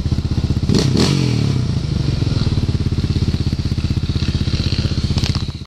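ATV engine running steadily with a low, even pulse. About a second in there are two sharp knocks and the engine note shifts, and another knock comes near the end.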